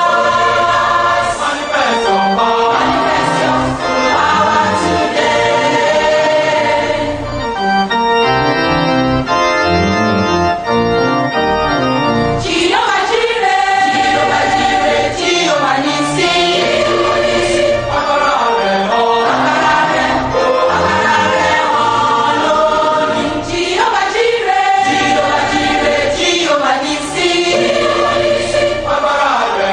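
Gospel music: a choir singing over organ accompaniment.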